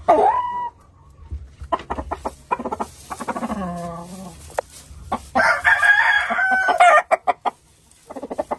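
Chickens clucking and calling: a sharp squawk at the very start, a run of short clucks, then a rooster's long crow about two-thirds of the way through, followed by more clucks.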